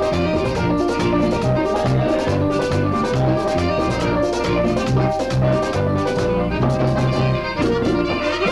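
A merengue band playing live: a prominent bass line under horns and driving percussion.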